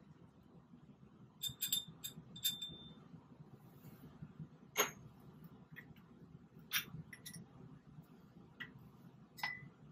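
Light glass-on-glass clinks and taps of laboratory glassware: a glass vessel knocking against a glass funnel and the funnel against the neck of a glass separatory funnel. There is a quick cluster of clinks in the first few seconds, then single taps spaced a second or two apart, some ringing briefly.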